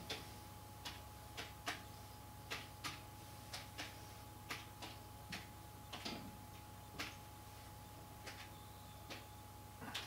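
Light clicks at uneven intervals, about two a second, over a steady low electrical hum.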